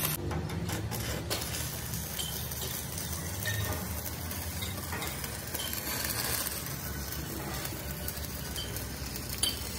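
Stick arc welding on a steel excavator bucket: the electrode's arc crackling steadily, over a low steady hum.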